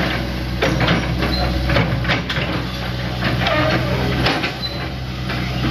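Hitachi Zaxis 100 excavator's diesel engine running steadily, with scattered knocks and clanks over it.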